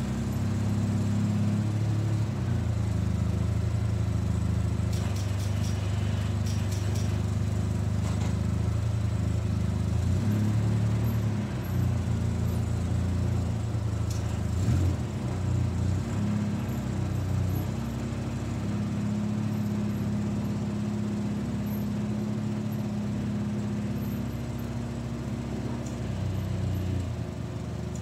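The engine of a 2004 Polaris Sportsman 600 ATV running as it moves about plowing snow with its front blade. It is a steady engine note that steps up and down in pitch, and there are a few faint clicks about five to eight seconds in.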